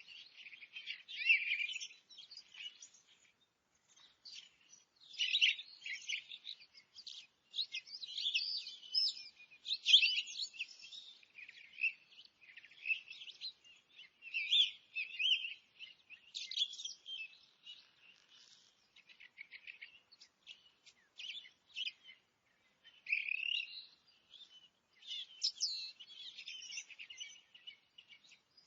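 Forest birds singing and chirping: several overlapping short calls and trills, coming in bursts with brief pauses between.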